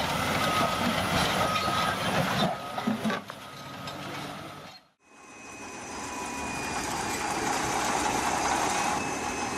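Bulldozer diesel engine running under load, fading out to silence about halfway through. A second bulldozer engine then fades in and runs steadily.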